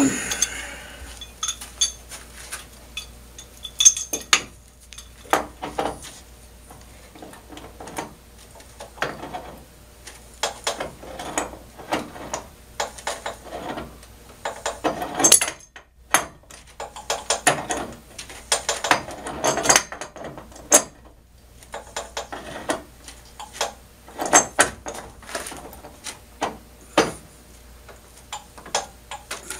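Irregular knocks, clinks and rattles of wooden and metal parts being handled on a homemade spar lathe while a sanding belt is fitted around the spar; the lathe motor is not running.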